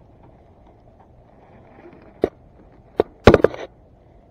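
Handling noise close to the microphone: a sharp click about two seconds in, another about three seconds in, then a quick cluster of loud knocks and clicks.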